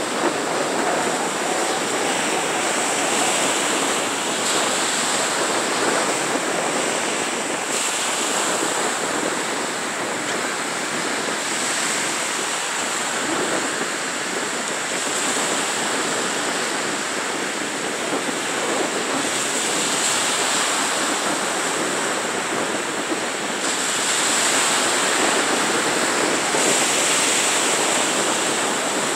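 Small Gulf of Mexico waves breaking and washing up the sand. A steady surf noise that rises and eases as each wave comes in.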